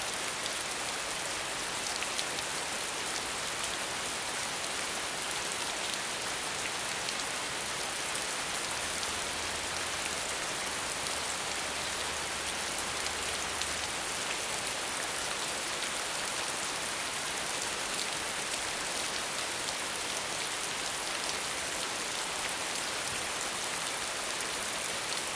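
Steady rain falling on leaves: a dense, even hiss of drops with single drops ticking through it.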